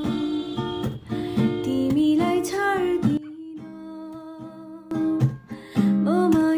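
A song with acoustic guitar and a singing voice, the soundtrack of a lip-sync clip, with a quieter stretch in the middle.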